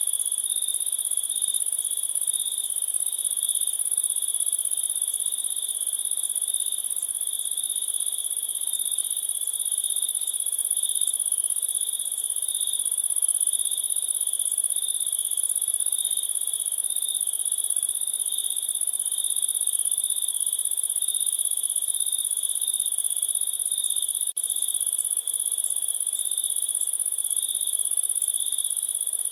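Crickets chirping in a continuous chorus: a steady high trill over a lower, pulsing chirp. There are two momentary dropouts a little past the middle.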